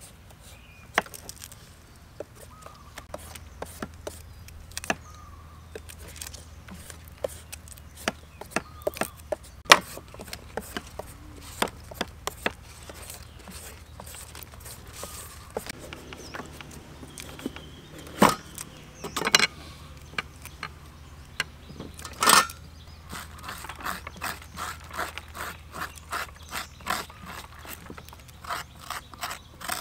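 Small clicks and scrapes of metal tools working raw food by hand: a knife on raw shrimp, then a peeler shaving a green papaya, with a few sharper knocks. Near the end comes a quicker run of scraping strokes as a metal spoon scrapes seeds out of the halved papaya.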